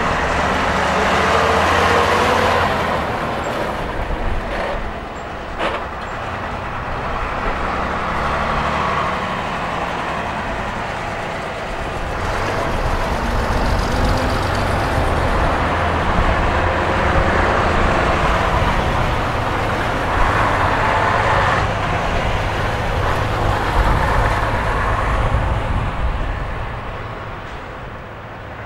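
Vintage half-cab double-decker bus running as it drives away along the road, its engine noise fading toward the end.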